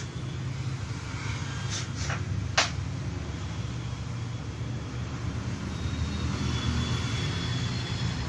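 Steady low background hum, with two short sharp clicks about two seconds in as a phone display and glass are handled on the workbench.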